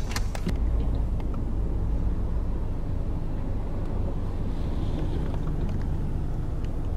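Steady low rumble of motor-vehicle noise, without distinct events.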